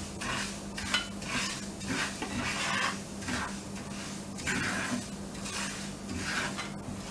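Wooden spatula stirring fenugreek and fennel seeds in hot mustard oil, scraping around a non-stick frying pan in repeated strokes, about one or two a second. A steady low hum runs underneath.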